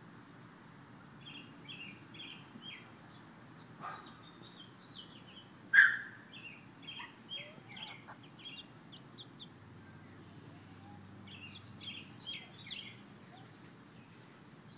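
Young chickens peeping: runs of short, high peeps in several bursts, with one much louder sharp sound about six seconds in, over a low steady outdoor background hum.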